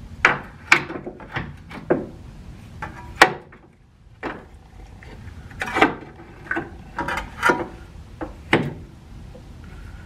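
A new lower control arm being worked into place under a 2009 Jeep Patriot, knocking and clanking against the front subframe and steering knuckle. There are a dozen or so irregular knocks; the sharpest comes about three seconds in.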